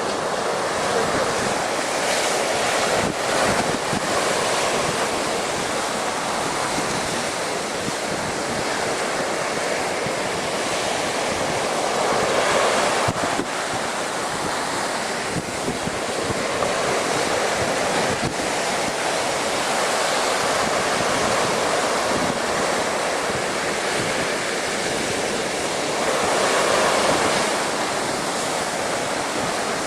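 Storm surf breaking and washing against a sea wall at high tide, a steady rush that swells louder a few times, near the start, in the middle and near the end. Wind buffets the microphone throughout.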